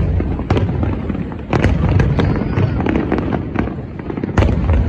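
Aerial firework shells bursting overhead: deep booms with many sharp crackles between them, and fresh heavy bursts about one and a half seconds in and near the end.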